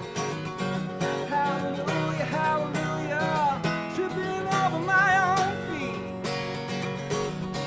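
Acoustic guitar strummed in a steady rhythm, with a pitched melody line over it that bends and wavers about two-thirds of the way in.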